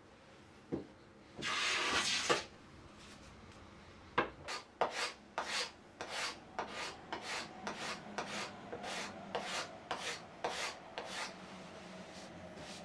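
A hand tool worked against wood: one longer scrape, then a steady run of short rasping strokes at about two a second that stop near the end.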